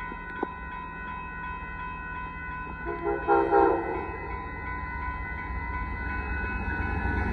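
Amtrak Texas Eagle locomotive horn sounds a short chord blast about three seconds in, over the steady high ringing of the road crossing's warning bells. The train's low rumble grows louder toward the end as it approaches.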